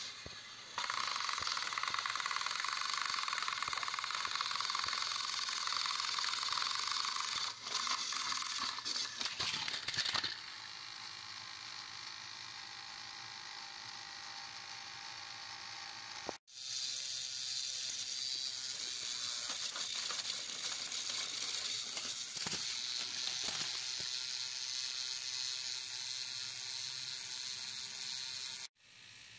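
Small battery motors of plastic toy trains whirring steadily, with a burst of clicking and clattering about eight to ten seconds in as the trains come off the track. The motors keep whirring with the toppled trains on their sides, and the sound cuts off abruptly twice.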